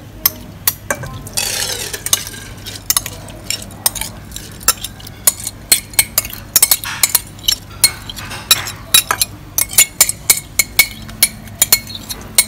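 Metal spoon scraping and clinking against a ceramic bowl as wet rice is scooped out into a pot: quick, irregular clicks and scrapes, with a short swish about a second and a half in.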